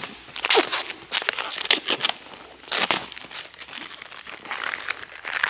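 Protective plastic film being peeled off a clear plastic panel, tearing away in a string of short, uneven rips.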